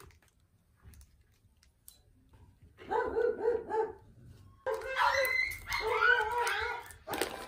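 Dog yipping and whining, high-pitched: a quick run of short yips about three seconds in, then a longer stretch of rising and falling whines and yips.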